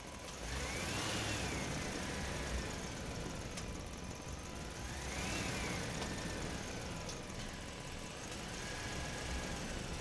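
Engine-like motor sound that swells and rises then falls in pitch three times, about four seconds apart, over a steady low rumble.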